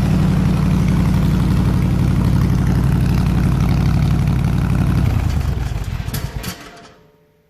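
302 V8 engine driving an air compressor, running steadily at idle, then shut off about five seconds in and winding down to a stop, with a couple of clicks as it dies.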